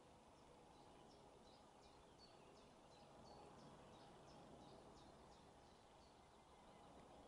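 Near silence with a faint bird song: a run of short, high, falling chirps, about three a second, that stops about a second before the end.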